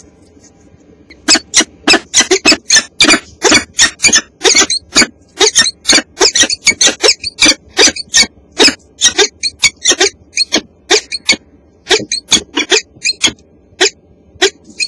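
Adult peregrine falcon calling loudly at close range inside the nest box: a rapid series of sharp calls, about three a second, starting about a second in and going on with brief pauses. This is the excited calling that goes with a mate arriving at the nest.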